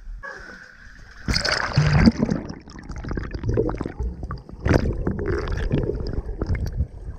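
Water splashing and sloshing, with scattered knocks. It starts quietly and turns loud about a second in.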